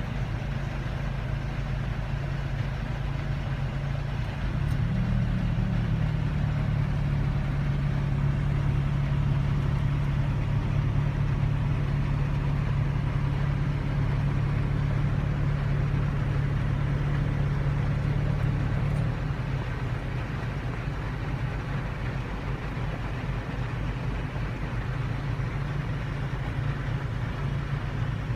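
A car engine running steadily. Its note rises and grows a little louder about four and a half seconds in, then settles back near twenty seconds.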